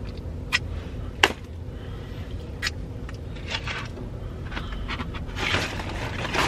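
Sharp clicks and crinkling from takeout food boxes and a plastic bag being handled, the loudest click about a second in and a longer rustle near the end, over a steady low hum.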